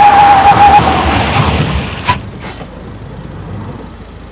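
Off-road side-by-side driving, its engine and a rush of wind noise, with a brief steady squeal near the start and a sharp click about two seconds in. The sound grows fainter over the second half.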